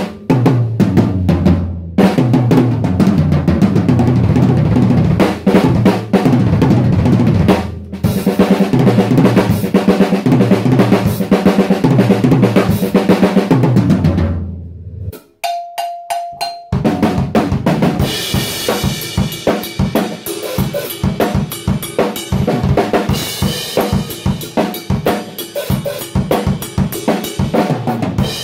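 Freshly tuned acrylic drum kit played with sticks. For about fifteen seconds it plays rolling fills heavy on the toms and bass drum. After a short break about halfway it plays a beat with cymbals.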